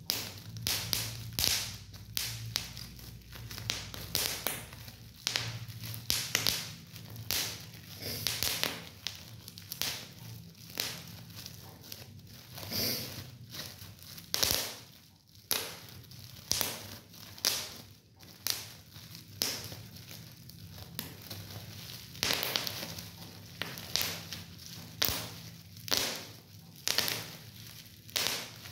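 Bubble wrap squeezed between fingers, its bubbles popping one after another with sharp snaps every second or so, amid crinkling of the plastic sheet.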